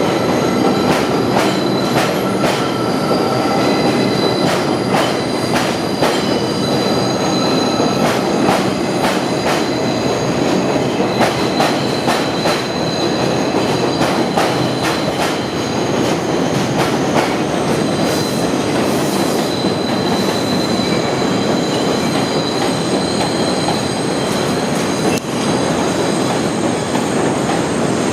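New York City subway train running on the rails: a steady rumble with frequent clicks over the rail joints and thin, high wheel squeal coming and going.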